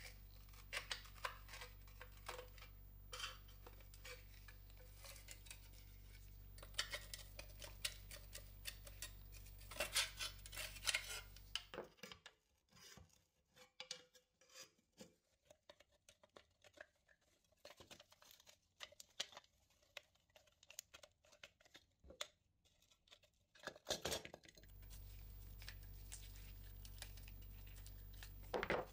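A flat screwdriver and pliers prying and scraping at the rusty pressed-steel body of an old toy cement mixer truck: many small metal clicks, scrapes and clinks, with a low steady hum underneath for much of the time.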